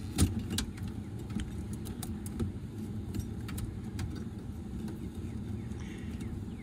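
Light clicks and rattles of thermostat wires and plastic wire nuts being handled in a heat-pump package unit's low-voltage wiring, the sharpest about a quarter second in, over a steady low hum.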